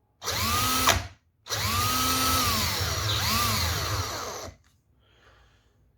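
DeWalt DC988 cordless drill motor spinning its freshly reassembled gearbox: first a short trigger pull of under a second, then a run of about three seconds. In that run the whine rises, holds, and falls as the motor slows, then comes a quick second squeeze before it spins down.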